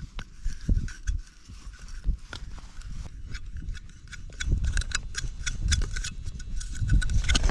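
Small clicks and scrapes of a plastic fishing-rod stand being handled and turned on its steel screw spike in the ice, coming thick and fast from about halfway. Under them a low rumble of wind on the microphone, heavier in the second half.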